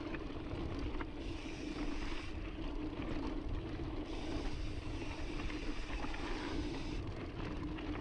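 Onboard sound of a mountain bike riding loose, dusty forest singletrack: tyres rolling over dirt and gravel with the bike's mechanical rattles and faint ticks, under steady wind noise on the camera microphone.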